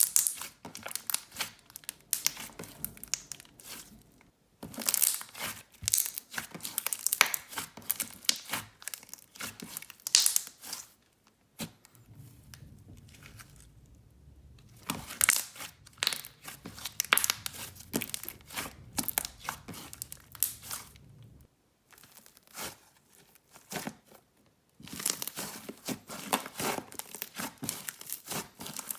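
Thick lemon-scented jelly slime with Fimo slices being squished, stretched and inflated by hand, giving dense sizzly crackling and popping in several bursts with short pauses between them.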